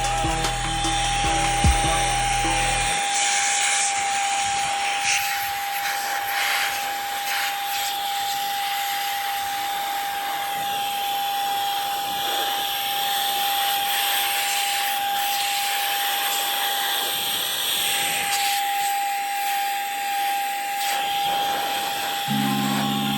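A small electric motor-driven air tool running steadily, with a constant high whine over rushing air, while dust is cleaned out of a PC power supply. Background music plays for the first few seconds and again near the end.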